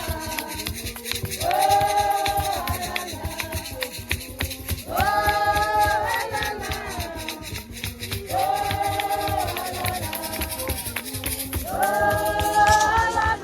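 A choir of voices singing in long held chords, a new phrase every three to four seconds, over quick shaker-like ticks.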